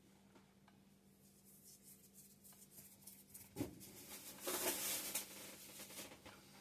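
Sourdough bread being handled at close range: faint crackles and scratchy rustling, a soft thump a little past halfway, then a louder scratchy rustle about a second later.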